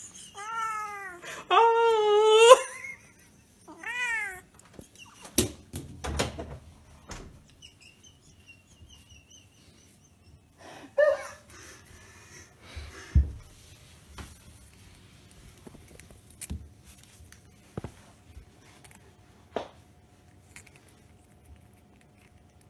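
A cat meowing three times in the first few seconds, the second call the loudest, then a shorter call about eleven seconds in. Scattered knocks and clicks fall between them, with a low thump about thirteen seconds in.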